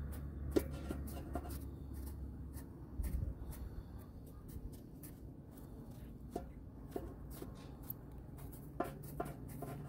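Kitchen knife cutting into a hand-held peeled squash, with scattered soft clicks and scrapes as the blade works through the flesh.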